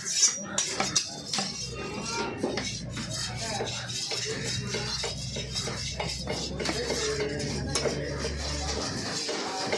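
Large knife chopping a paarai (trevally) fillet into small cubes on a wooden chopping block: a quick run of short knocks as the blade hits the wood. A low steady hum sounds underneath from about a second and a half in until near the end.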